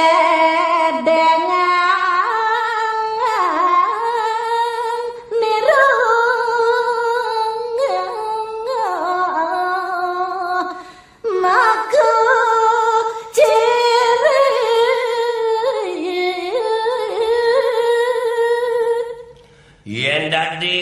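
A woman sings a verse of a Balinese geguritan (tembang) unaccompanied, in long, high, melismatic held notes, in three phrases with short breaths between them. A man's lower voice comes in near the end.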